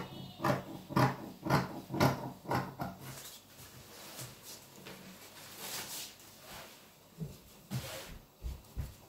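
Scissors snipping through folded fabric, about two cuts a second, stopping about three seconds in; after that, soft handling of the fabric and a few light knocks near the end.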